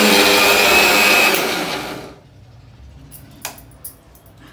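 Electric mixer grinder running at full speed, grinding roasted onion, dry coconut, garlic and coriander into a masala paste, then switched off and winding down about two seconds in. Two light clicks follow near the end.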